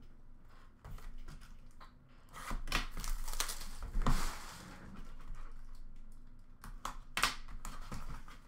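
Cardboard card boxes and plastic wrapping being handled and crinkled as a sealed Upper Deck Trilogy hockey box is taken out and opened. It is loudest about two to four seconds in, with scattered taps and clicks later on.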